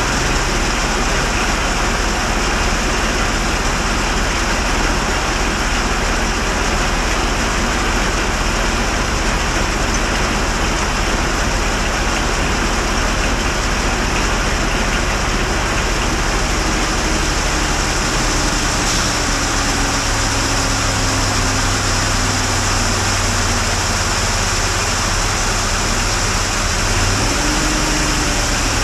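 An engine running steadily under a constant rushing noise. About two-thirds of the way through, a low hum grows stronger, and near the end the engine's pitch rises briefly and settles.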